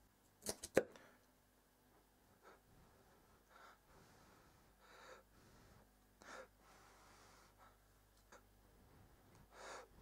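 Handling of a homemade fire piston's copper tube and steel rod. A quick cluster of three sharp clicks comes about half a second in, followed by faint scattered rustles and breath-like noises.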